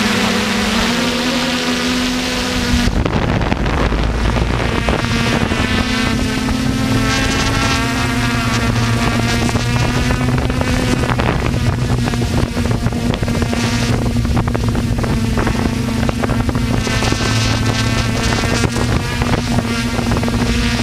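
Electric RC aircraft motors and propellers running with a steady pitched drone that shifts slightly in pitch now and then, with wind buffeting the microphone.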